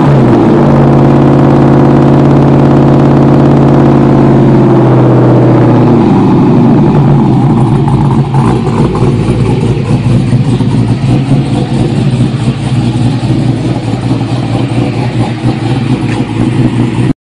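Pickup truck's engine heard at its exhaust, held at raised revs with a steady drone for several seconds, then dropping back about six seconds in to an uneven idle.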